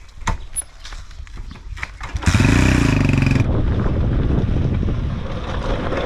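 Small motorcycle engine starting up about two seconds in, with a brief rev that settles into steady running as the bike pulls away.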